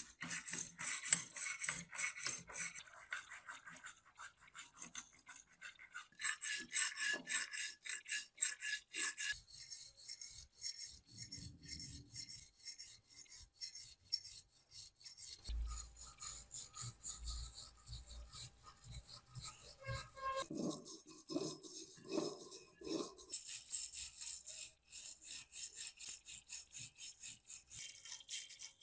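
Steel wire brush scrubbing rust off an old iron adjustable wrench in quick, repeated back-and-forth strokes: a dry, gritty scraping.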